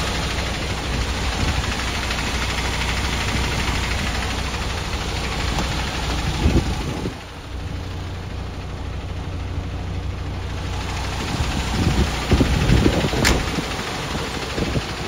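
MAN TGS 18.480 tractor unit's inline-six diesel engine idling steadily. A few louder rumbles on the microphone come about halfway and again near the end, and there is a single sharp click shortly before the end.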